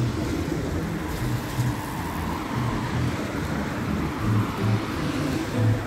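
City street traffic: cars and a light delivery van driving past, a steady rushing tyre and engine noise, under background music with a repeating bass line.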